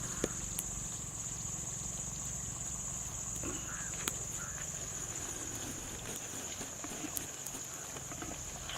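Steady high-pitched insect buzz, like cicadas or crickets, with a few sharp scattered clicks over a low rumble.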